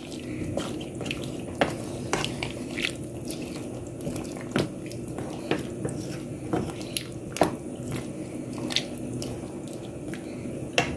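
A wooden spatula stirring a pot of chicken and bottle gourd curry: wet squishing and sloshing, with light irregular knocks of the spatula against the pot, over a steady low hum.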